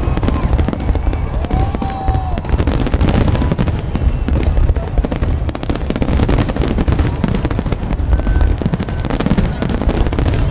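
A New Year's fireworks display going off continuously: dense, rapid bangs and crackling bursts one after another over a constant low rumble.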